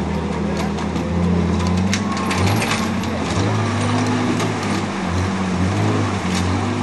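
Dodge WWII weapons carrier's flathead six engine running under load, climbing a rutted dirt track, its pitch dipping and rising a few times as the throttle changes. Scattered sharp clicks and knocks over it.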